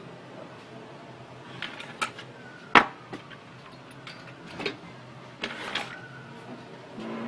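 A few separate sharp clicks and knocks from printer parts being handled during repair, the loudest about three seconds in, over a steady low hum.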